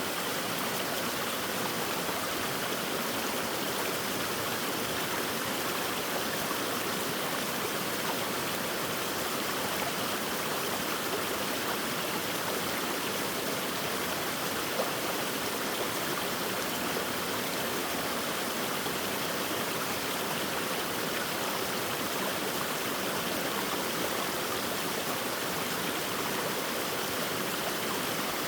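Mountain valley stream: water rushing and splashing steadily over rocks, an even, unbroken hiss.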